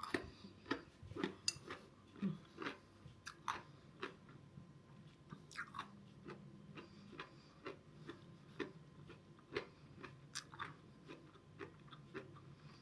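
A person chewing crunchy pickled cabbage with beetroot: irregular crisp crunches and small mouth clicks, a few every second.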